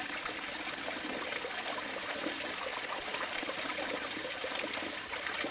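Steady running water, an even trickling noise.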